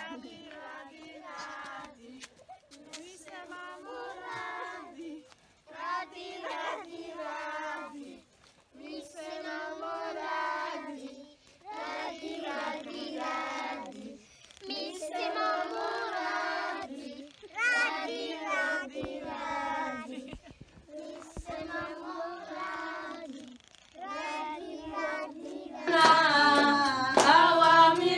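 A group of children singing together in short phrases with brief pauses between them. About two seconds before the end it changes to louder, fuller group singing.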